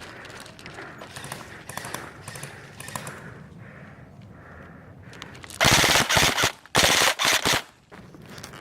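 Airsoft rifle firing three rapid bursts a little past halfway: the first about a second long, then two shorter ones close together. Before that, only faint steps and rustling.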